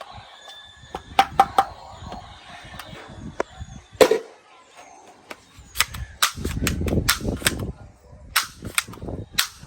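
Toy guns firing: sharp cracking shots, some single and some in quick runs of two or three, with a stretch of low rumbling noise in the middle.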